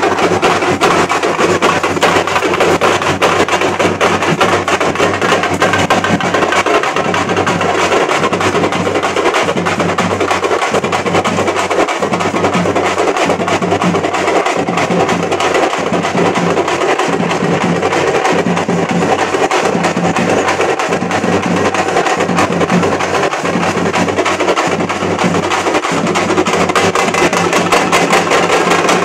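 A troupe of parai frame drums playing together in a fast, continuous beat of dense strokes.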